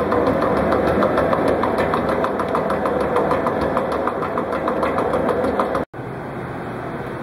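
Holac Cubixx slicing machine running as it cuts chicken breast into slices, a steady machine noise with a rapid, regular clicking. Near the end the sound cuts off suddenly and comes back as a quieter, steady hum.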